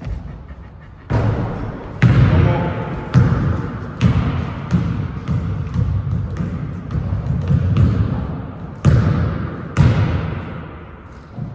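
Basketball bouncing on a gym floor, about once a second, each bounce echoing in the hall.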